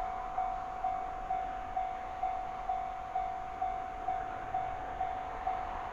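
Japanese railway level-crossing warning bell ringing, a single repeated tone struck about twice a second, signalling that a train is approaching.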